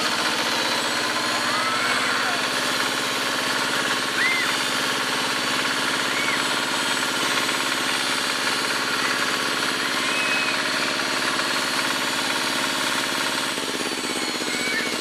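Tractor engine running steadily as it pulls a trailer of riders, with a few faint children's shouts over it.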